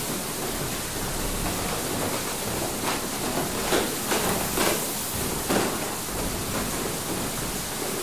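Inside a water mill: a steady rush of water, with irregular knocks and clunks from the mill's turning machinery about once a second.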